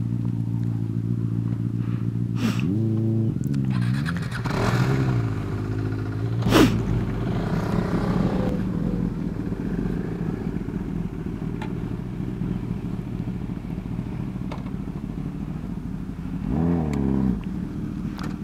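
Kawasaki Ninja ZX-10R inline-four with a Brocks slip-on exhaust idling steadily, with quick throttle blips twice in the first six seconds and once more near the end. A sharp click comes about six and a half seconds in.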